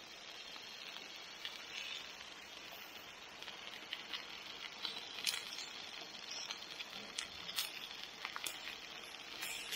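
Thick steak sizzling on the grates of a portable camp grill, a steady hiss with scattered crackles and pops that come more often in the second half, mixed with rain pattering.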